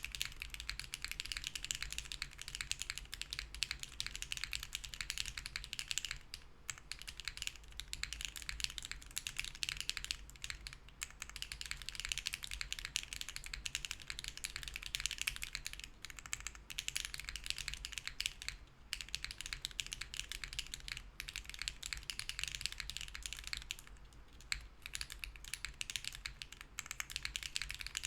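Fast, continuous typing on a Hera R2 mechanical keyboard with BSUN Bunny switches on a POM plate, with no foam, broken by a few brief pauses.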